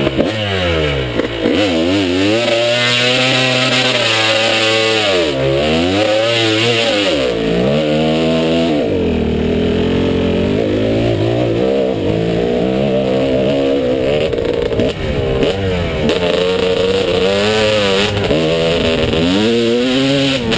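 Dirt bike engine pulling away and riding on, its pitch rising and falling over and over as the rider works the throttle and gears. It dips briefly about halfway through, with a short drop in level near 15 seconds in.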